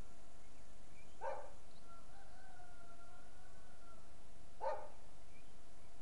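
Animal calls in the distance: two short calls about three and a half seconds apart, with a long, steady, level tone held between them. Faint scattered chirps and a constant background hiss run underneath.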